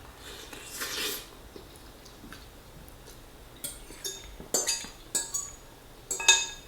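Cutlery scraping and clinking against a plate while spaghetti is eaten: a scrape about a second in, then a series of sharp ringing clinks in the second half, the loudest near the end.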